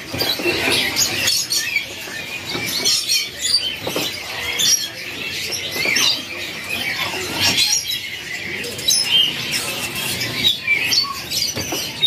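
Many caged songbirds chirping and twittering in short, high calls, overlapping with one another, with scattered sharp clicks and knocks among them.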